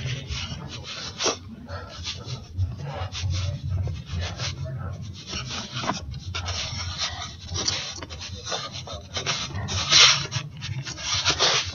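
Irregular rustling and scuffing of footsteps over leaf-strewn grass, mixed with rubbing on the phone's microphone, with a louder rustle about ten seconds in.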